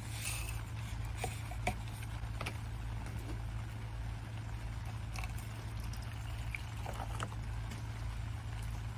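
Hot water poured from a camping kettle into a metal camp mug, with light clicks and taps of metal on metal and a brief rustle at the start.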